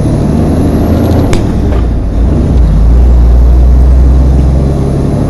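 Diesel engine of a loaded semi-truck pulling in a low-range gear, heard from inside the cab. A sharp click comes about a second in, and about two seconds in the engine note dips briefly as a whole gear is changed on the 18-speed manual transmission without the splitter, then it pulls steadily again.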